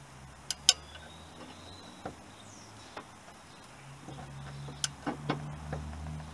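Torque wrench clicking on a crankshaft pulley bolt as it is tightened toward 200 Nm: irregular sharp clicks, two loud ones about half a second in and a cluster near the end, over a low steady hum.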